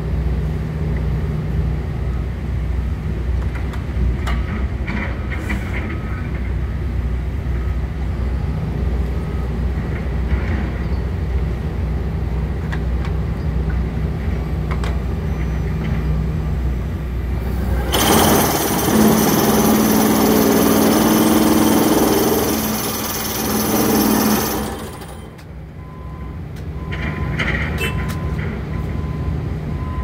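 Tracked pile-driving rig working a steel pile into the ground: a steady low mechanical rumble, which turns much louder and harsher for about six seconds some eighteen seconds in, then drops back to a quieter running sound.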